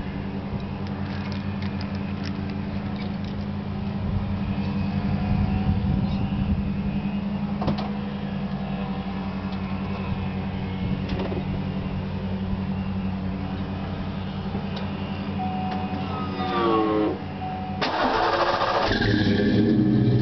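Ford 5.0-litre V8 idling steadily through shorty headers, an H-pipe, Flowmaster Super 40 mufflers and 3-inch tailpipes. About sixteen seconds in the pitch sweeps up briefly. From about eighteen seconds the engine runs louder at a higher, steady speed.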